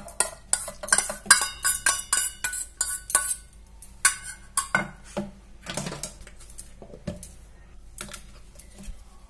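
Steel spoon scraping and knocking against a steel kadhai and a steel mixer-grinder jar as cooked masala is scooped across. A quick run of clinks with short metallic ringing comes in the first half, then sparser knocks.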